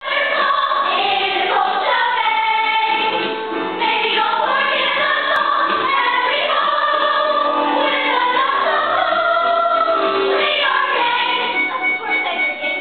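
A stage cast singing together in chorus, a musical-theatre ensemble number.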